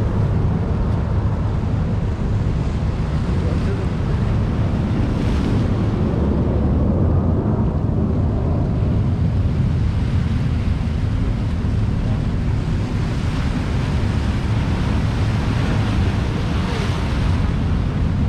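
Bay waves washing and splashing against shoreline rocks, under heavy wind rumble on the microphone. Two louder washes come about five seconds in and near the end.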